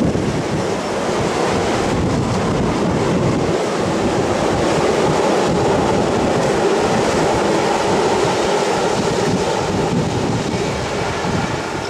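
Matterhorn Gotthard Bahn narrow-gauge electric passenger train running past close by, its wheels and running gear rumbling along the track, over the steady rush of a mountain river.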